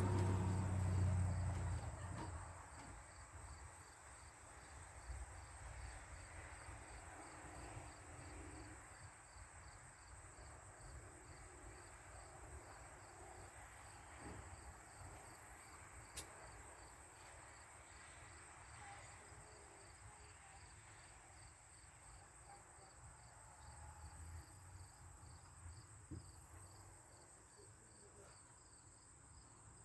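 Insects, crickets by the sound, chirping steadily in a fast, even pulse, with a low rumble that dies away over the first two seconds.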